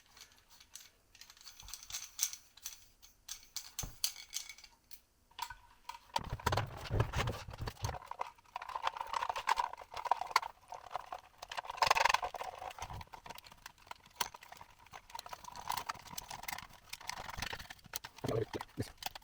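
Small parts being handled and fitted into a 3D-printed plastic enclosure: a run of clicks, taps and light rattles, with a louder knock about twelve seconds in.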